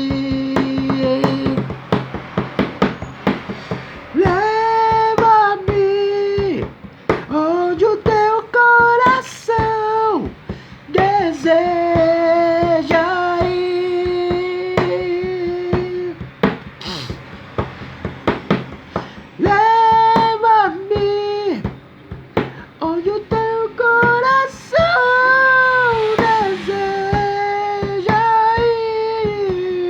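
Christian worship song playing: a held melody line that slides between notes, sung or played, over band accompaniment with frequent drum hits.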